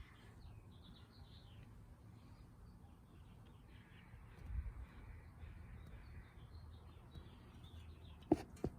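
Faint birds calling in the background, with two sharp clicks close together near the end.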